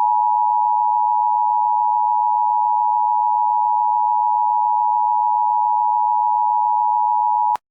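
Emergency Alert System attention signal: two steady tones, 853 and 960 Hz, sounding together as one unchanging chord, which cuts off abruptly shortly before the end.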